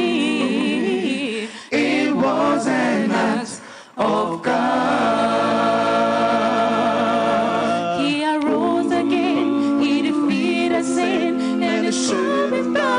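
A small group of women singing a gospel song in harmony into microphones, with two short breaks in the first few seconds and then a long held chord.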